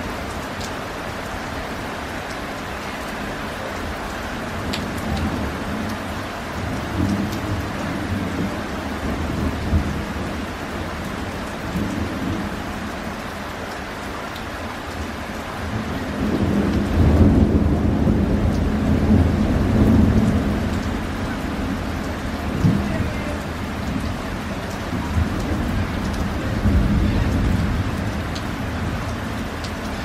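Steady rain falling, with thunder rumbling: a few shorter rumbles in the first third, a long, loud roll of thunder about halfway through, and more rumbles later on.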